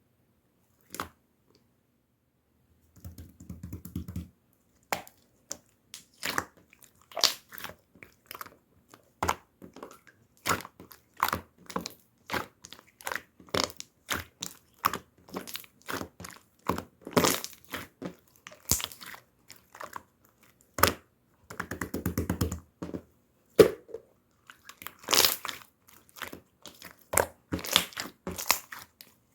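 Pink slime being squished and pressed by hands, giving irregular sticky clicks and air-bubble pops, several a second, with two stretches of denser, lower squelching. It starts after a quiet first few seconds.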